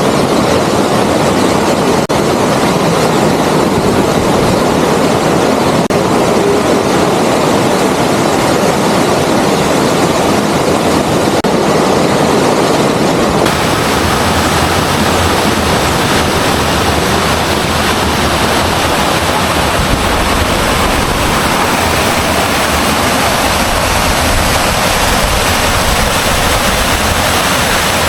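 Waterfall rushing steadily into its pool, a loud continuous roar of water; its tone shifts about halfway through.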